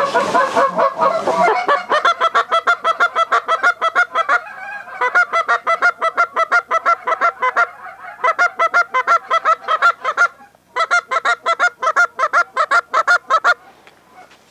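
Canada geese honking in a fast, even run of calls, about five a second, with two short breaks and a stop shortly before the end.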